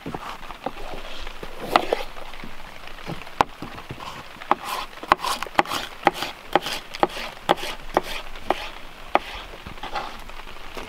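Kitchen knife slicing bell pepper into strips on a plastic cutting board: a run of sharp, uneven taps as the blade strikes the board, coming thickest through the middle.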